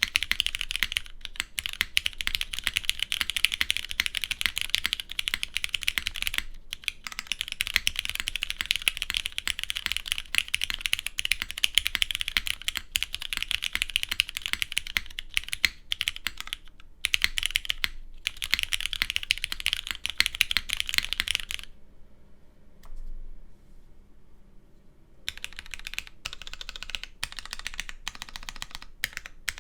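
Typing on a Kibou Fukuro custom mechanical keyboard with stem-lubed, non-broken-in Cherry MX Black linear switches on a polypropylene plate under GMK keycaps: a fast, continuous run of keystrokes with the light scratchy, chalky feel of new MX Blacks. The typing stops for about three seconds around two-thirds of the way in, then picks up again.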